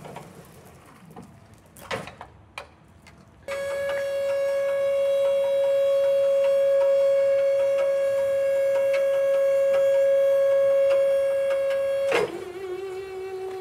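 Abeko SKY 13 SAJ electric reach truck's hydraulic pump motor giving a loud, steady whine as the mast raises the forks. It starts after a few clicks, and near the end it drops to a lower, slightly wavering pitch as the lift goes on.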